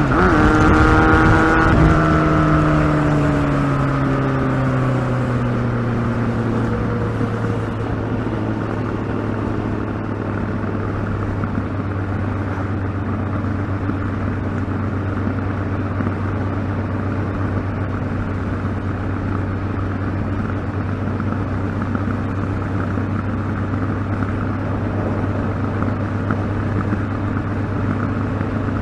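Kawasaki ZX12R's inline-four engine: the revs are high at first, fall away over several seconds, then hold one steady low note with a constant rushing noise underneath.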